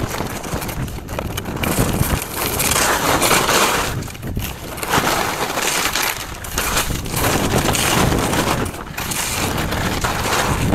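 Nordica skis scraping and carving over packed snow through a series of turns: a hiss of edges on snow that swells and fades about every two seconds.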